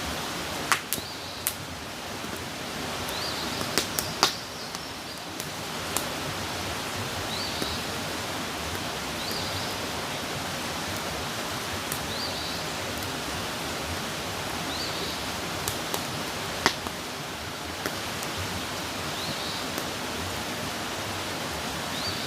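Wood campfire crackling: scattered sharp pops and snaps over a steady hiss of burning, with the loudest pops about a second in, at about four seconds and past the middle.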